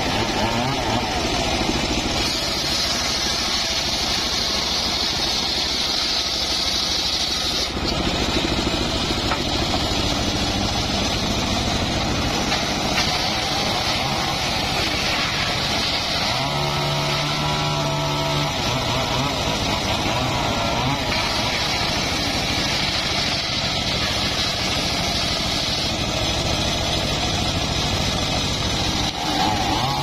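Homemade circular sawmill's engine and blade running continuously while logs are fed through, together with a Stihl chainsaw running alongside, at a steady level.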